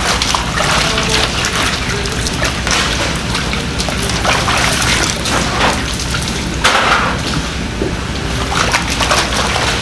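Water splashing and sloshing in a plastic basin as bunches of green onions are swished and rubbed clean by hand, in irregular splashes.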